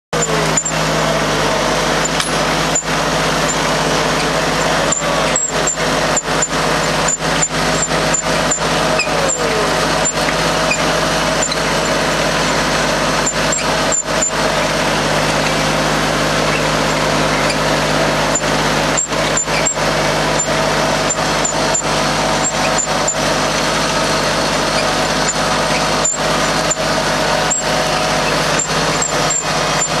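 Hoover potato digger at work behind a tractor: a steady engine drone under continuous metallic clattering and rattling from the digger's chain bed as it lifts and sifts soil and potatoes.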